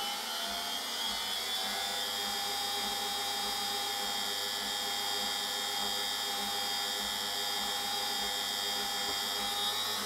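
Washing machine's brush-type motor running under test. Its whine rises over the first couple of seconds, then holds a steady speed. The motor has just had its speed-encoder magnet ring refitted and is now running at the proper speed steps, sounding alright.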